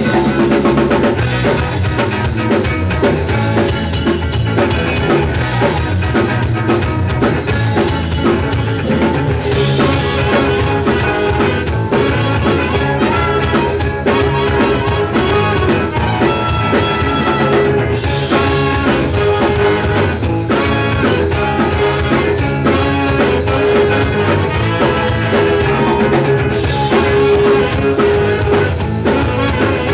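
Ska-punk band playing live, with drum kit, guitar and bass driving a steady beat and held notes running over the top.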